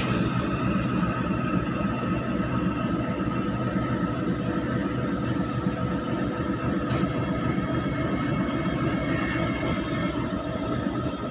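WDG4G diesel-electric freight locomotive running and moving slowly at shunting speed. It makes a steady engine rumble with a constant whine over it.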